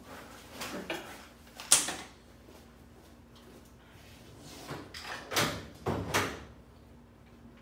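Drawers sliding open and shut and things being rummaged through, with a sharp knock about two seconds in and a run of clatters and knocks about five to six seconds in.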